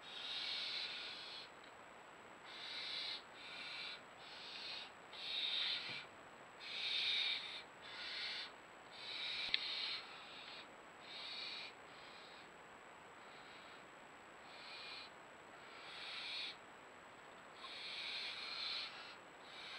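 Barn owls calling from the nest box: a run of about fifteen harsh hissing screeches, each half a second to a second long, with short gaps between them.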